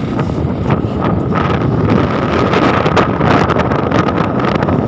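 Loud wind rumbling and buffeting on a phone's microphone, crackling unevenly, with a steady high hum running through it.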